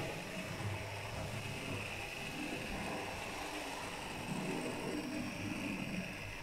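Hornby GWR 14XX 0-4-2T OO gauge model locomotive running under DC power: the steady whir of its small electric motor and gearing, with its wheels rolling on the rails.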